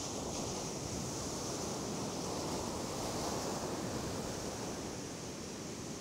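Sea surf washing onto a sandy beach, a steady rushing noise, with wind on the microphone.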